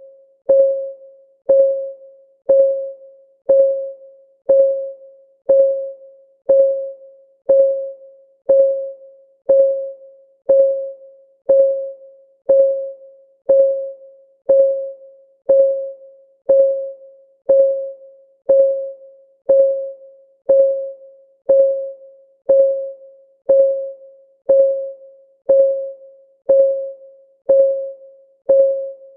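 Countdown timer's ticking sound: one tick each second, steady throughout. Each tick is a short pitched tone with a click at the start that rings briefly and fades.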